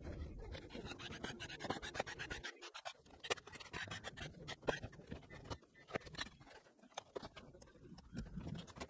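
Faint scattered clicks and scraping of small tools against a laptop's plastic case as its screws, bottom covers and keyboard are taken off.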